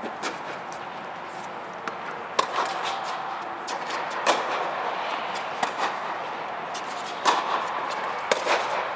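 Tennis balls struck with rackets: sharp pops every second or so, some louder and some fainter, over a steady background hiss.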